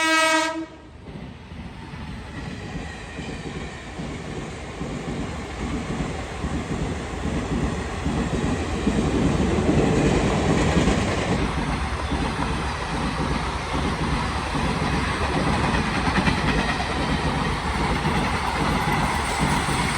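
A train horn sounds one steady pitched blast that cuts off about half a second in. A train then runs past, its wheels clattering rhythmically over the rail joints, louder toward the middle and carrying on to the end.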